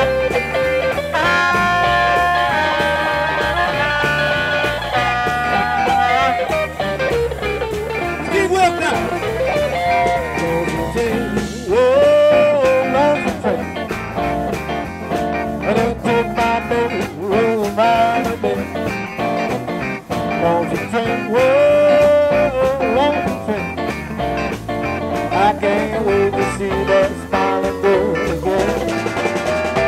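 Live blues band playing an instrumental passage: a hollow-body electric guitar takes the lead at first, over electric bass and drums, with bending melodic lines later on.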